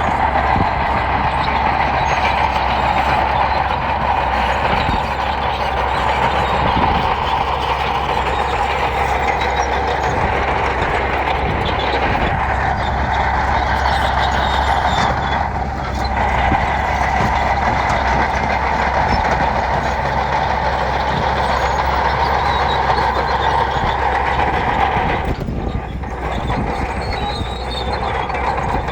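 Heavy diesel earthmoving machinery running steadily at work on gravel. The sound dips briefly a few times.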